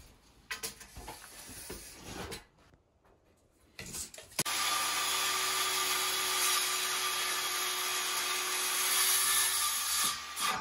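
A few knocks as a wooden batten is handled, then a circular saw starts about four seconds in and runs steadily for about six seconds, cutting through the timber, before stopping near the end.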